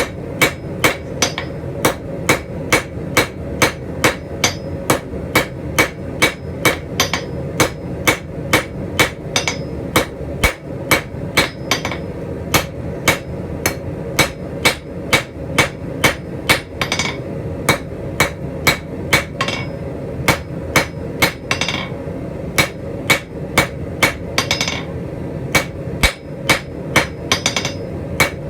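Hand hammer striking the steel tips of scrolling-tong blanks on an anvil, drawing them out to a point. The blows are sharp and ringing, about two a second, with short pauses between runs, over a steady background hum.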